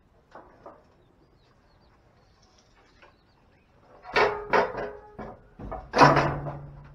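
A run of loud knocks and scrapes, like things being handled and moved, starting about four seconds in and loudest about six seconds in, after a few quiet seconds.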